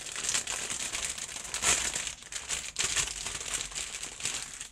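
Plastic wrapping around model-kit parts crinkling and rustling continuously as it is handled.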